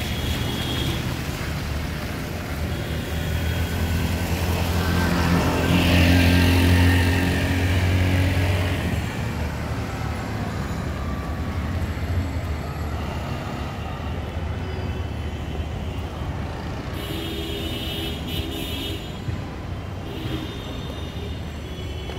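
A heavy vehicle's engine running with a steady low hum over general traffic noise. It swells louder for a few seconds about five seconds in, then eases back.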